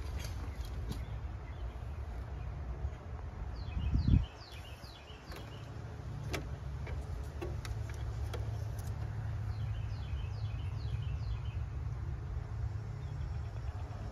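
Outdoor ambience: a steady low rumble with a loud low thump about four seconds in and a few small clicks, and a bird chirping in two quick runs of short descending notes.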